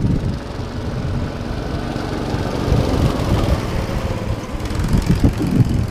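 Small go-kart engines running as several karts lap the track.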